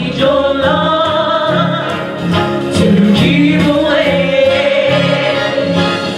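Music with singing: a singer comes in at the start, holding long notes with vibrato over accompaniment that has a steady bass beat.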